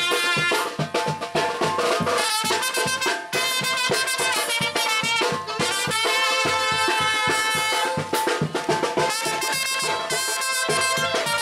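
Brass band music: trumpets and trombones over a steady drum beat.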